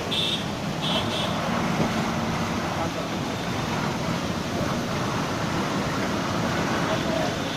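Dense city road traffic: a steady wash of engine and tyre noise, with two short high-pitched beeps in the first second or so.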